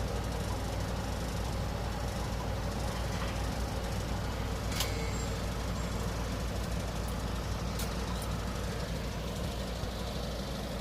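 Heavy truck engine running steadily with a low rumble, and a couple of sharp clicks about five and eight seconds in.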